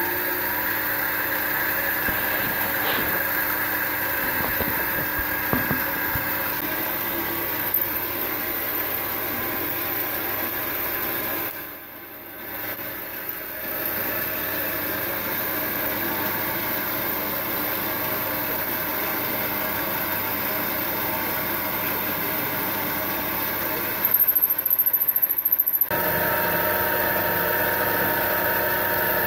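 Small metal lathe running steadily, with a motor hum and whine, while a twist drill held in the tailstock chuck drills into a piece of metal bar stock. Near the end it is louder and rougher for a couple of seconds, and then it runs on with a different tone as the bar is turned down with a cutting tool.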